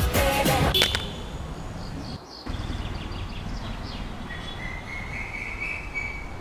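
A pop song with singing cuts off about a second in, leaving outdoor street ambience with faint bird chirps and a thin high whistling call in the second half.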